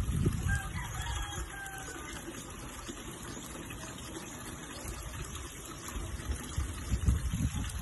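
Koi pond water splashing and trickling steadily from its inflow and bubbling surface, with wind buffeting the microphone near the end.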